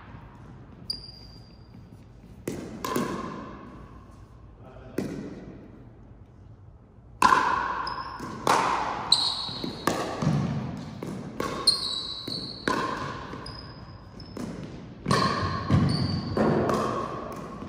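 Ball game in a gym hall: a ball is struck and bounces with echoing impacts. There are a few spaced hits at first, then a quick run of them from about seven seconds in, with short high squeaks of shoes on the floor between them.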